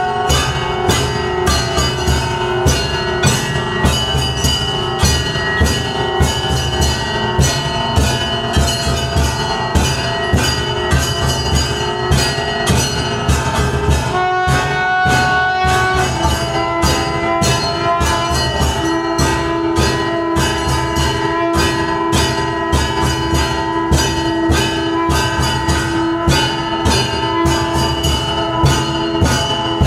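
Aarti music with temple bells and drums struck in a rapid, steady rhythm, and long held melodic notes over them that change pitch partway through.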